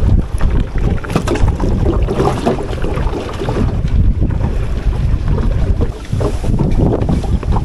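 Wind buffeting the microphone in a heavy, uneven rumble, with gusts coming and going.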